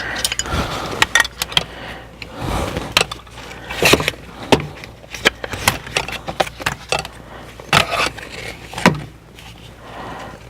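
Seatbelt assembly being handled and fitted: many irregular clicks and clinks of metal and plastic parts, with rustling in between.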